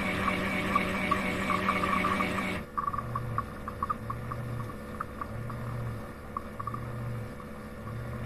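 Roomba Max 705 Combo's AutoWash dock working through its mop-washing cycle. A steady motor sound with rapid ticking stops abruptly about two and a half seconds in, and is followed by a low hum that pulses on and off about once a second with light ticks.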